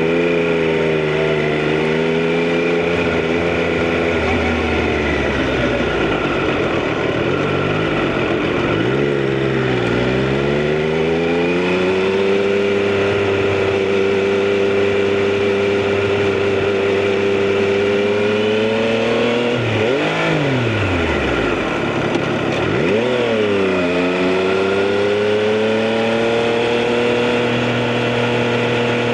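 Triumph Street Triple RS inline three-cylinder engine and exhaust heard from the rider's position while riding. It holds a steady note for long stretches, and the revs drop and climb again three times. There is a steady rush of wind and road noise underneath.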